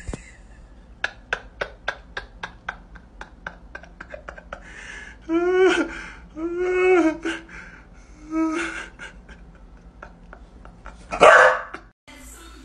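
A dog giving three drawn-out, wavering bark-like calls around the middle, as if grumbling back, after a run of quick light clicks. A single loud, harsh burst comes near the end.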